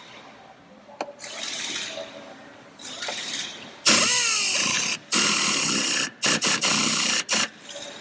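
A power tool with a 15mm socket run in short bursts to tighten the nut on a rear shock absorber's top mount. There are a few quieter runs at first, then three louder bursts of about a second each.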